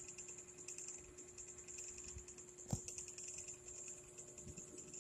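Quiet room background: a steady, fast-pulsing high chirring over a low steady hum, with one soft knock a little past halfway.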